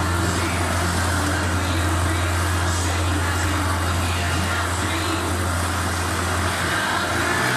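Motorcycle engines running steadily as riders circle inside a steel-mesh globe of death.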